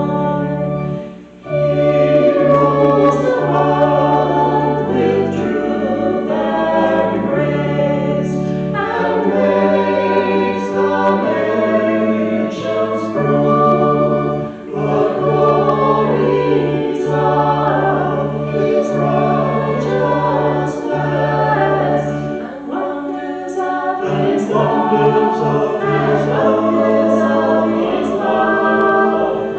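Church choir singing a hymn over accompaniment that holds low bass notes. The music breaks off briefly about a second in and again about halfway through, between phrases.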